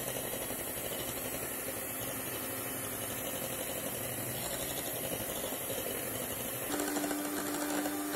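Electric hand mixer running steadily, its twin beaters whipping egg white in a bowl while hot sugar syrup is poured in. Near the end the sound changes suddenly to a steadier hum.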